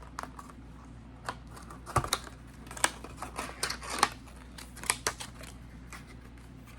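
Irregular sharp clicks and taps of small product packaging being opened and the LED bulbs inside handled.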